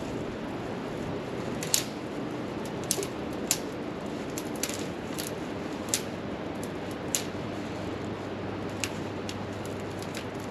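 Wood fire crackling: irregular sharp pops, about eight of them at uneven gaps, over a steady hiss.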